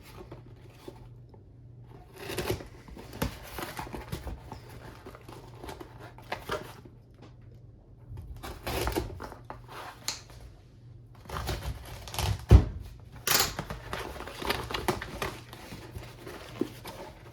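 A package being unboxed by hand: wrapping crinkling and tearing and cardboard scraping in irregular bursts, with clicks and a sharp knock about twelve seconds in.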